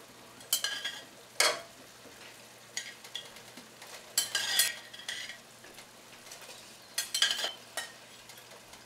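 A perforated spoon scooping paneer cubes out of a glass bowl and tipping them into a pot of simmering gravy: about five short clinks and scrapes of the spoon against the bowl and the pot.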